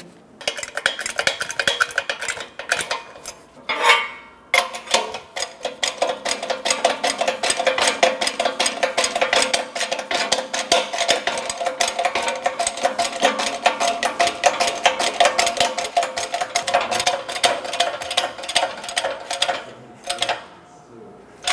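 Shop press driving a new rearward control arm bushing into the control arm, with a steady, rapid metallic chatter. There is a shorter burst of similar chatter before it, a brief pause about four seconds in, and the sound stops shortly before the end.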